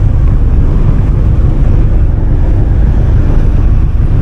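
Strong wind buffeting the microphone on a ferry's open deck: a loud, steady, low rumble.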